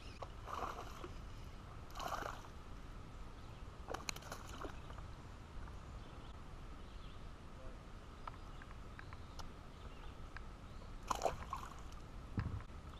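Faint water lapping and sloshing around a plastic kayak, with a few brief splashes and knocks while a small bass is handled.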